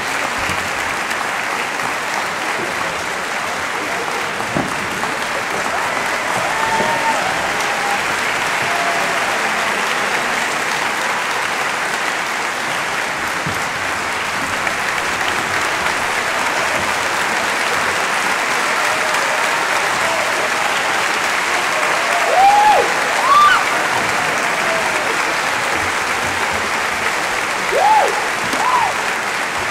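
Concert hall audience applauding steadily. A few cheering shouts rise above the clapping about two-thirds of the way through and again near the end.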